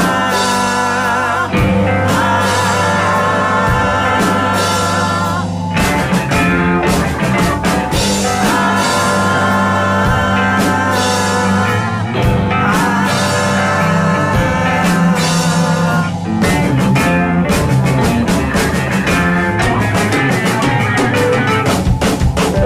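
A rock band playing live: long wavering lead notes held over a steady bass line. Drum hits grow busier from about two-thirds of the way through.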